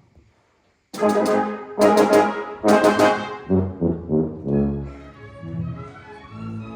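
Symphony orchestra with the brass leading: after a brief silence, three loud, short brass chords about a second in, followed by lower stepping notes and sustained strings entering near the end.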